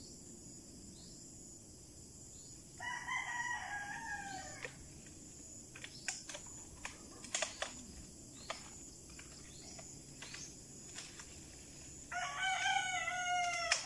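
Rooster crowing twice: one crow about three seconds in and another near the end, each lasting about two seconds. A few sharp clicks fall in between.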